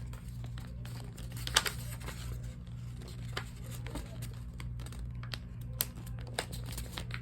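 A sheet of paper being folded and creased by hand, crinkling with scattered sharp crackles, the loudest about a second and a half in. A steady low hum runs underneath.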